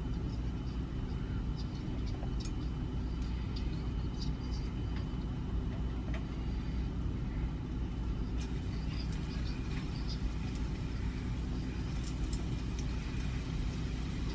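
Steady low hum of a kitchen range hood fan running, with faint scattered clicks of a fork against a plastic tub of batter.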